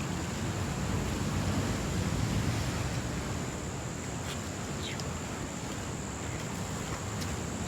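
Sea waves surging in, with wind on the microphone: a steady rushing noise that swells a little in the first few seconds.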